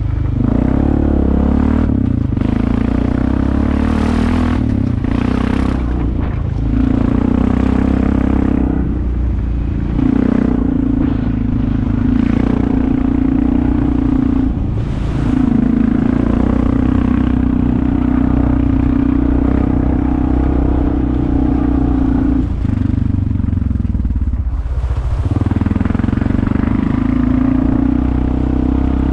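Off-road vehicle engine running under load along a trail, easing off and picking back up about six times, with a few short bursts of clatter.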